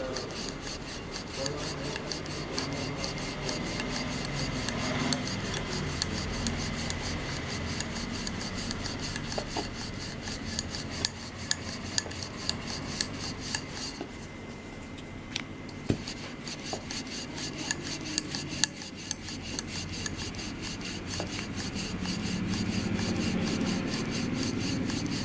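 Wooden rolling pin rolling back and forth over poori dough on a flour-dusted board, a steady rubbing rasp with a fast, even run of light ticks.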